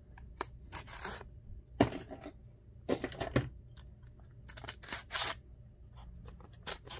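Packaging of a replacement laptop screen being handled and pulled open by hand: irregular small clicks, crinkles and short scraping rustles.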